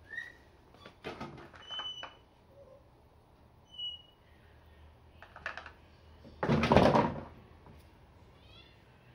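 Hand-work noises at a workbench: a few clicks and knocks, then one loud rasping burst about half a second long, with a few short high chirps in between.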